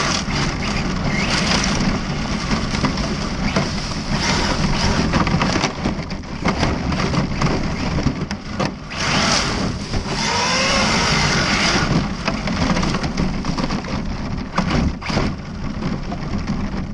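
ARRMA Felony 1/7-scale brushless electric RC car driving hard on gravel: a loud, steady din of tyres crunching and throwing gravel, with the motor's whine rising in pitch about ten seconds in.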